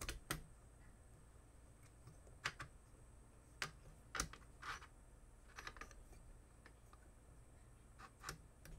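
Irregular faint clicks and taps of plastic and metal parts being handled as the wiring is tucked in and the box magazine's feed is fitted into a G&P MK46 airsoft replica, with a short rustle in the middle.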